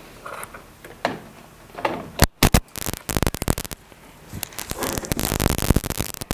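Digital TS-60 amplifier's speaker giving loud pops about two seconds in, then rapid crackling static as the unit is plugged in and powered up. The crackle is the fault noise the unit is being repaired for.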